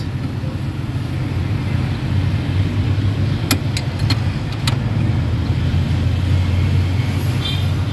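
Steady low hum of a running engine, with three short sharp clicks about halfway through.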